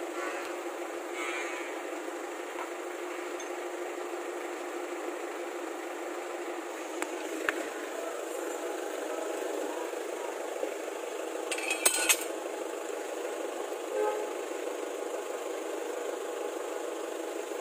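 Mitsubishi Canter truck wheel spun by hand on its drum brake to check the brake shoe adjustment, over a steady background hum. A few light clicks, and a sharp metallic clatter about twelve seconds in.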